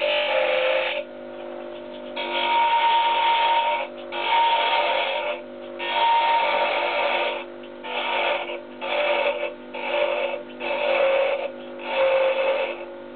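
Small wood lathe running with a steady hum while a turning tool cuts the spinning mahogany in repeated passes, each a second or so of scraping with short pauses between; some passes carry a steady ringing tone.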